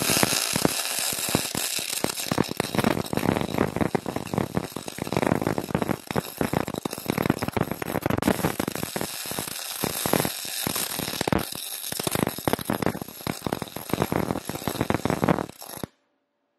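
MIG welding arc from a YesWelder MIG 250 Pro crackling steadily as a bead is laid into the V-groove of 10 mm (3/8 in) steel plate, then cutting off suddenly near the end as the arc stops.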